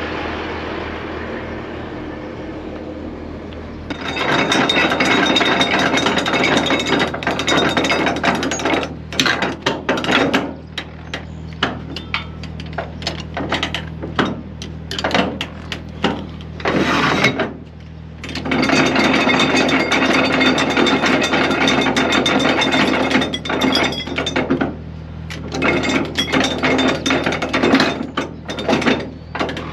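Cargo tie-down straps on a flatbed truck being released and wound up, a ratcheting strap mechanism giving long runs of rapid clicking broken by short pauses. A truck engine idles steadily underneath.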